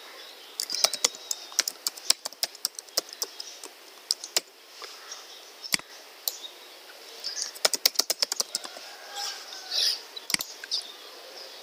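Typing on a computer keyboard: irregular keystrokes in two flurries, about a second in and again around eight seconds in, with a few single clicks between and after.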